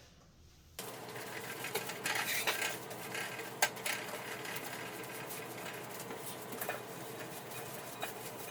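Dishes and cutlery clinking and clattering as they are handled. It starts about a second in, with a sharper knock a little later.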